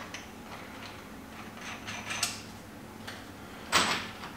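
Metal fixture pieces of a steel welding table being handled and set into the table's holes: a few faint light taps and clinks, then one sharper clack near the end.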